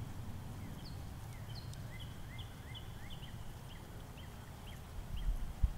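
A songbird chirping a run of short, quick rising notes, about two or three a second, over a steady low rumble; a low bump near the end.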